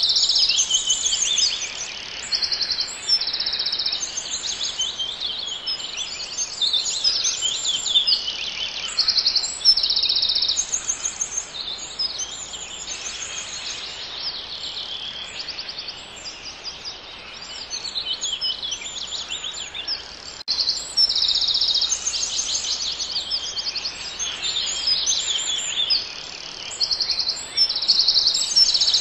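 Several songbirds singing at once: a dense chorus of short, high, rapid trills and phrases overlapping one another without pause.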